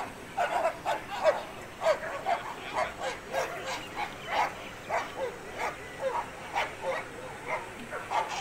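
A dog barking over and over, short barks that drop in pitch, about two a second.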